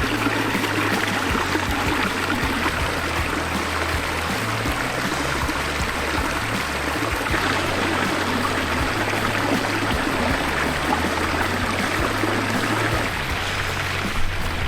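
Water running steadily down a newly built pond waterfall and stream, with background music underneath whose low bass notes change every few seconds.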